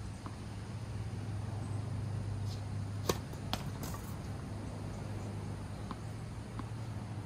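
Tennis ball being hit and bouncing: a few sharp pops about three to four seconds in, over a steady low hum.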